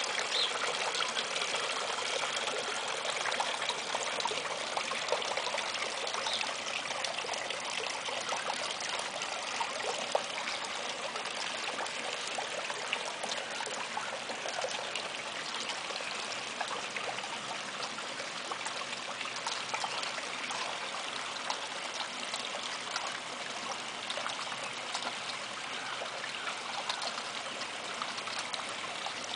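Water trickling steadily along a small concrete garden canal.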